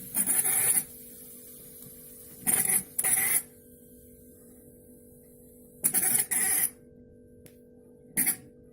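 La Pavoni Europiccola's steam valve squeaking loudly as its knob is turned back and forth, in short high squeaks that come mostly in pairs every few seconds.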